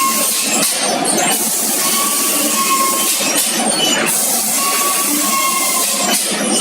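Cement roof tile machine running: a steady mechanical clatter with metallic clinking, the noise dipping briefly about every three seconds.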